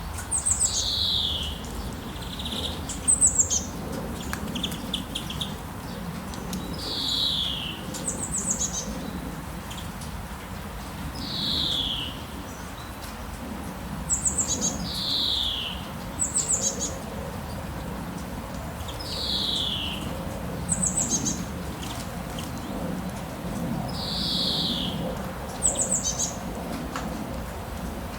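Songbirds calling over and over: a quick, high falling trill and a clear downslurred whistle, repeating every few seconds. Behind them runs a steady soft hiss.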